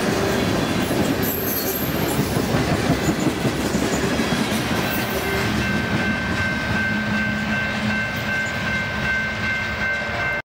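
Freight train of tank cars and covered hoppers rolling past, its steel wheels making a steady loud rumble on the rails. About halfway through, a thin steady high whine joins in. The sound cuts off suddenly near the end.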